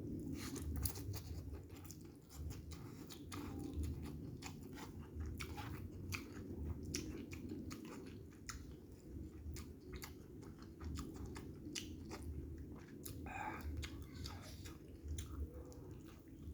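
A person chewing and biting food close to the microphone, with many small wet clicks and smacks of the mouth throughout.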